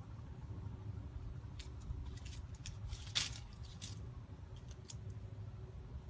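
A rooster scratching and pecking in dry leaf litter: a scatter of short, dry crackles and rustles, the loudest about three seconds in, over a low steady rumble.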